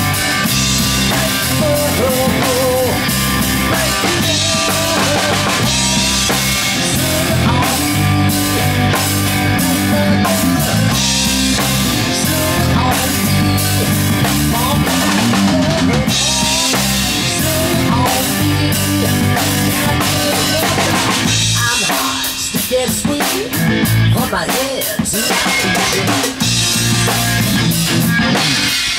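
Live rock band playing an instrumental passage: two electric guitars over a full drum kit with kick, snare and cymbals. For a few seconds about two-thirds of the way through, the low notes drop out and the drums carry on mostly alone before the full band comes back in.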